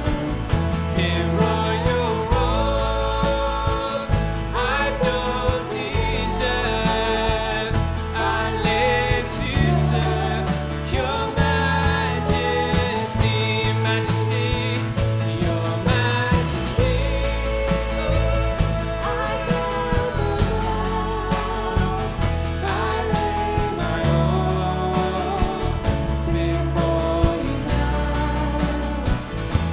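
Contemporary worship band playing an instrumental passage between sung lines: held bass notes and a steady drum beat under a wavering melodic lead.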